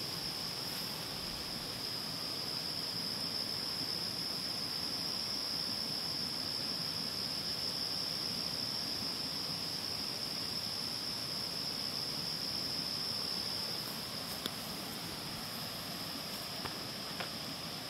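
A chorus of insects holding one steady high-pitched drone, over a soft hiss, with a few faint ticks near the end.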